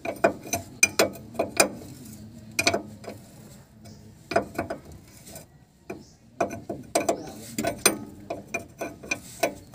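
A steel combination wrench clicking and clinking against a nut on a steering linkage joint as the nut is worked loose. The clicks come in short runs of a few sharp strikes, with pauses between them as the wrench is repositioned.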